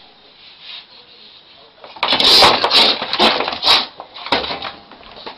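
A cat and a rat scuffling: a run of loud, harsh, noisy bursts starting about two seconds in and lasting about two and a half seconds.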